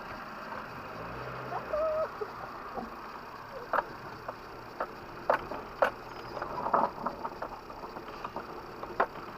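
Off-road vehicle driving slowly over rough ground, its engine running low under a series of sharp knocks and rattles, with a short squeak about two seconds in.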